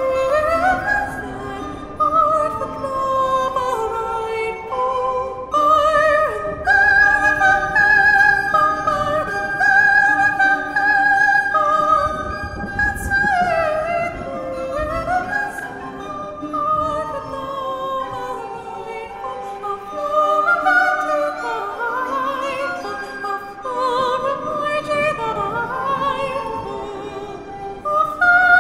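A Renaissance song: a female soprano sings with vibrato against interweaving recorder lines and plucked lute.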